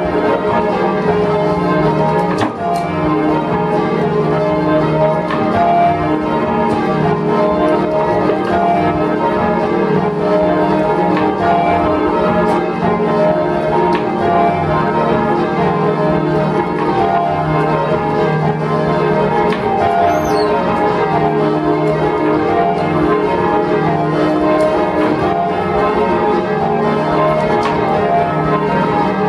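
Ring of six church bells (tenor in E flat) being rung by rope, heard from the ringing chamber. The strikes follow one another continuously in changes, each bell ringing on over the others.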